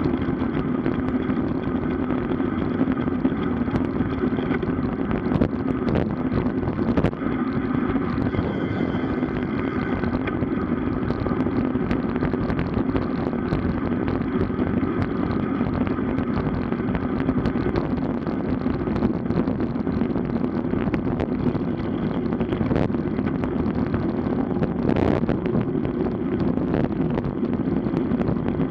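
Steady wind and road noise from a camera riding along on a road bicycle, with a constant low drone and a few sharp knocks.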